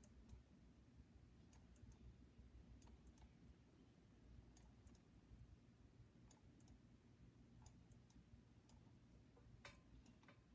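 Faint computer mouse clicks, a dozen or so at irregular intervals, over a quiet low room hum.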